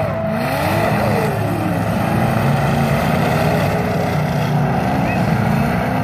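Several demolition derby cars' engines revving and running together, pitches rising and falling in the first second or so and then settling into a steady loud rumble.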